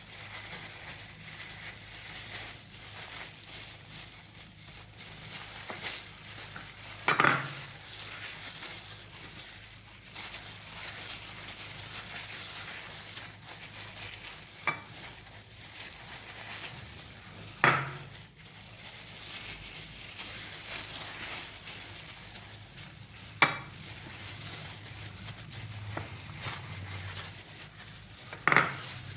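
Chicken leg pieces being worked through a thick marinade in a bowl: a soft, steady mixing noise broken by about five sharp knocks against the bowl.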